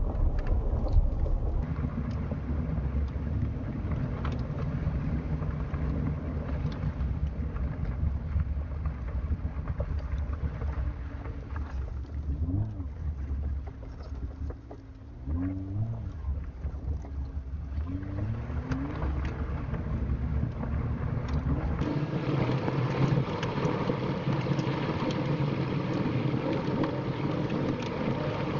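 Vehicle driving slowly, a steady low rumble of engine and tyres. The engine pitch rises and falls a few times midway, and a rougher, brighter tyre hiss takes over about three-quarters of the way through.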